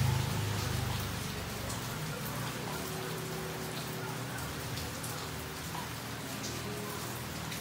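Steady rain falling on foliage and surfaces, with many separate drops ticking over an even hiss. A low rumble fades out about a second in.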